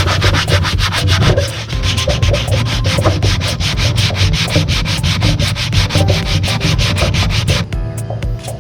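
Sandpaper rubbed by hand over a wooden tabletop in rapid, even back-and-forth strokes, pausing briefly near the end.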